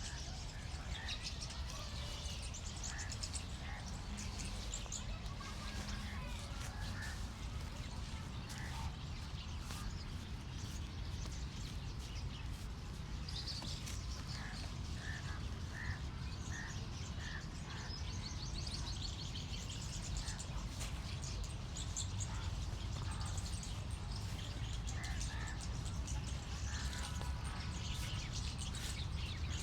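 Many birds chirping and calling, with a run of about five evenly spaced notes around the middle, over a steady low background rumble.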